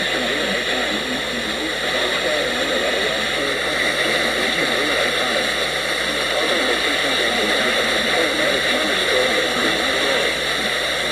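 Loud, steady hiss of radio static between alert broadcasts.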